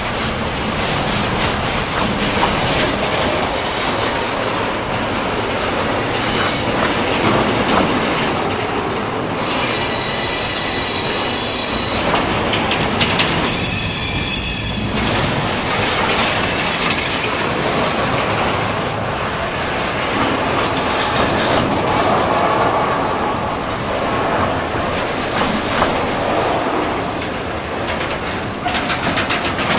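Pan Am Railways freight train's double-stack well cars rolling past close by, the wheels clattering and clicking steadily over the rails. A high-pitched wheel squeal starts about ten seconds in and comes again a few seconds later.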